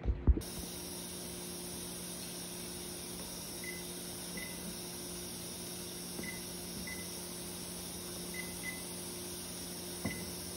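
Microwave oven keypad beeping as buttons are pressed to set it: seven short high beeps, some in quick pairs, over a steady low hum. A couple of low thumps right at the start are the loudest sounds.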